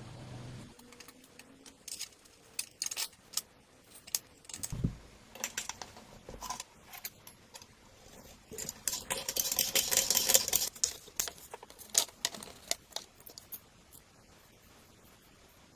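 Small metal parts and tools being handled on a workbench: scattered sharp clicks and light metallic jangling, with a busier stretch of rattling about halfway through. A low hum stops less than a second in.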